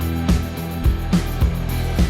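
Background music: an instrumental track with guitar and a steady beat, drum hits about twice a second.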